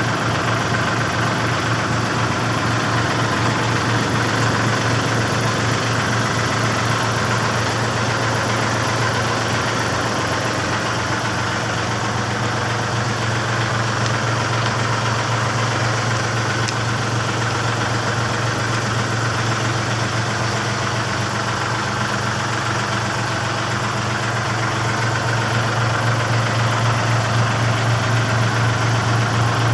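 Backhoe's engine idling steadily with an even low pulsing, getting a little louder in the last few seconds.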